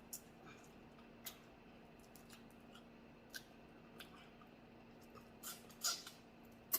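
Faint, sparse clicks and crunches of someone eating a seafood boil by hand, the sharpest snap coming near the end, over a faint steady hum.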